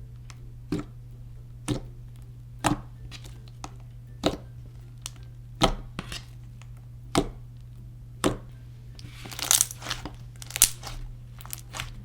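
Freshly activated clear slime being squeezed and pressed by hand, giving sharp clicks and pops about once a second, with a denser crackling patch about nine seconds in, over a steady low hum.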